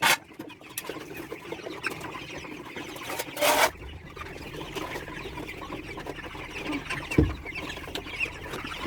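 A flock of chickens clucking steadily, with a short loud burst of noise about three and a half seconds in and a dull thump about seven seconds in.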